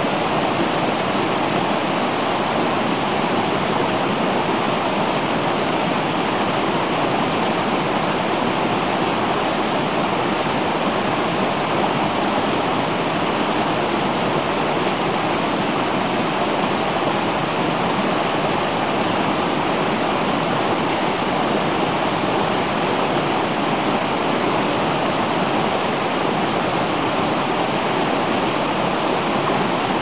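River water rushing steadily over rocks in shallow rapids, a continuous even rush with no breaks.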